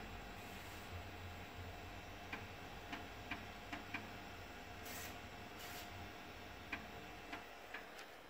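3.5-inch floppy disk drive reading a disk during a ScanDisk surface scan: irregular sharp clicks of the read head stepping from track to track, over a faint steady hum. Two brief hissy rasps come around the middle.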